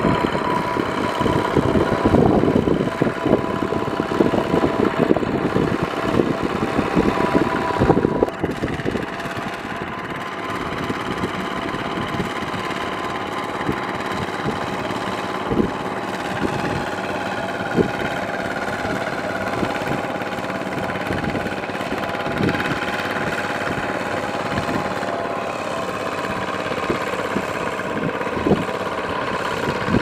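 Two-wheel walking tractor's single-cylinder diesel engine running steadily under load, with its steel cage wheels churning and splashing through flooded paddy mud. The churning is louder and choppier for the first several seconds, and a few sharp knocks come later.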